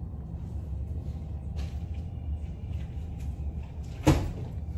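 A steady low rumble, with a single sharp knock about four seconds in.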